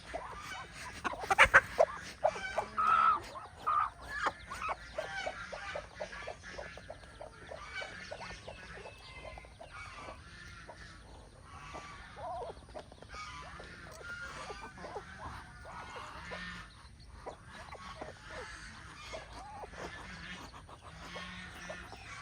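A hen clucking in a run of short repeated calls, loudest in the first few seconds.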